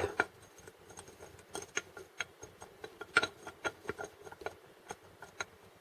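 Oil pump drive gear from a MeMZ 317 engine rocked by hand in its housing, giving irregular light metal clicks and ticks as it knocks about. The play comes from heavy wear in the gear's pocket and on its collar.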